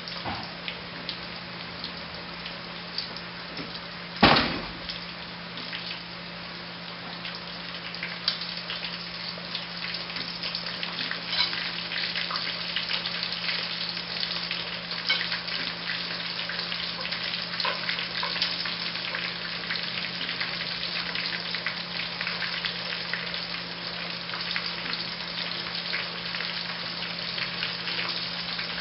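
Breaded chicken pieces deep-frying in hot oil in a pot, sizzling and crackling with many small pops, growing louder from about eight seconds in. A single sharp knock about four seconds in.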